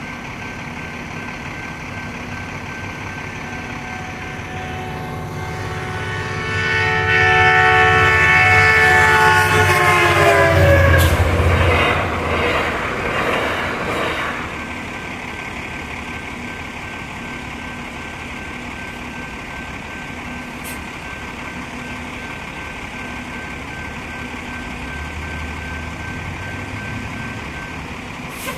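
Metrolink EMD F59PH diesel locomotive sounding a long horn blast as it approaches, its pitch dropping as it passes about ten seconds in, followed by the rumble of the train going through the crossing for a few seconds. The grade-crossing bell rings steadily and stops near the end as the gates rise, over an idling bus engine.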